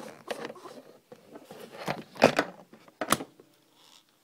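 Close-up handling noise of hands working a detachable microphone off a pair of gaming earphones: a few short rustles and clicks, the loudest a little past two seconds in.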